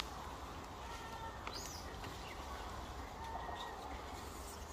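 A few short, faint chirping animal calls, some high and curving in pitch, scattered over a steady outdoor hiss.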